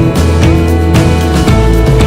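Loud background music with a steady beat, including a plucked guitar.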